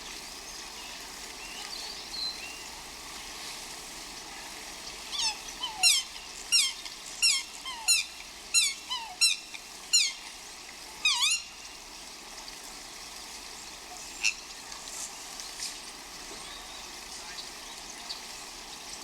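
A bird giving a run of about nine sharp calls, each sliding quickly down in pitch, over a steady outdoor background hiss.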